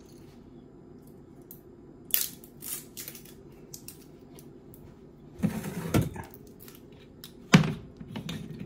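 A glass vinegar bottle with a metal screw cap being handled on a counter: a scatter of small sharp clicks, then a burst of knocks and rattling about five and a half seconds in, and one louder knock about seven and a half seconds in.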